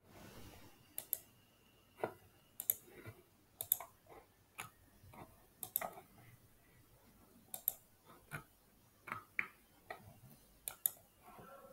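Faint computer mouse clicks, irregular and often in quick pairs, as browser tabs are clicked through.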